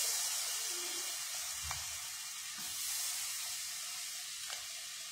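Homemade butter sizzling as it melts in a hot frying pan: a steady hiss with a few faint crackles, slowly dying down.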